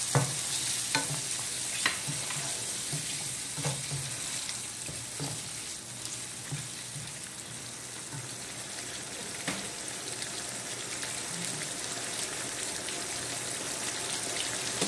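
Curry sauce bubbling in a non-stick pan just after hot water has been added, while a spatula stirs it and clicks against the pan a handful of times, most often in the first few seconds.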